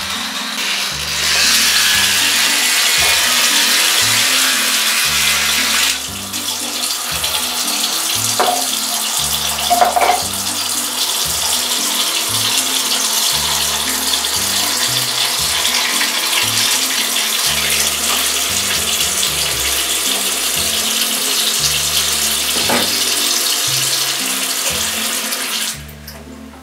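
Bathroom sink tap running into the basin, starting about a second in and cutting off near the end, with background music's bass line underneath.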